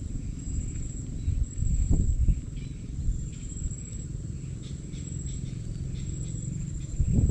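Insects trilling high and steady, the trill pulsing on and off, over a low rumble that swells about two seconds in and again near the end.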